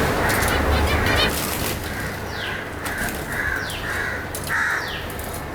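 Caged lovebirds and finches calling: short repeated chirps, with quick downward-sliding calls from about two seconds in. A low rumble sits under the first second.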